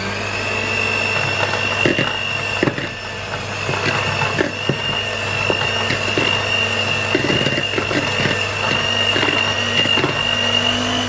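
Breville electric hand mixer running steadily, its beaters creaming cold butter and sugar in a large bowl, with a high motor whine. The beaters knock irregularly against the bowl. The motor spins up at the start and is switched off right at the end.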